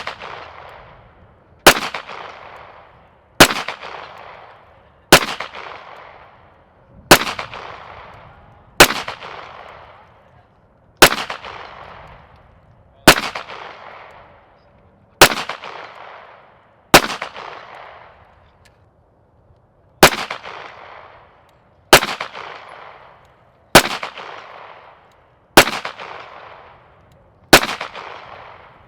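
Handgun firing single shots at a slow, even pace, about one every two seconds, fourteen in all with one longer pause near the middle. Each shot is followed by a fading echo.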